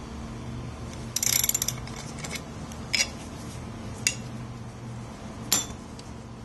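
Ratchet wrench with an 8 mm hex bit turning a bicycle crank-arm bolt: a quick run of ratchet clicks about a second in, then three single metallic clicks spread over the next few seconds.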